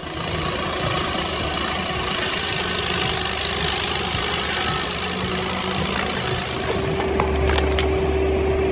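Excavator-mounted stump grinder at work: its engine runs under a dense, hissing grind as the toothed cutter chews into a stump. Near the end a steady hum and a deeper engine drone come in.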